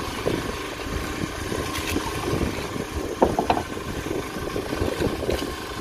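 A small engine running steadily at low speed, with a few light clicks a little past three seconds in.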